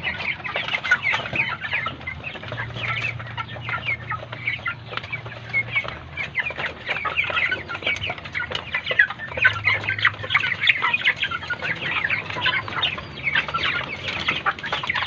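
Flock of caged broiler chickens clucking: a dense chatter of many short overlapping calls.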